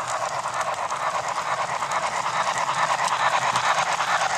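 HO-scale model steam locomotive and coal hopper cars running along the track: a steady rolling rattle of small wheels on rail, with rapid fine clicking.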